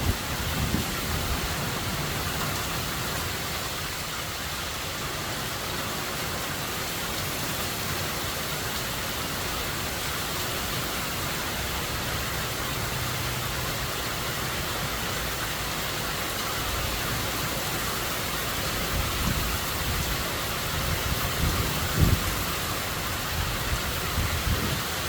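Steady hiss of heavy hurricane rain. Low, irregular rumbles come at the start and again in the last few seconds, with a single sharp thump about 22 seconds in.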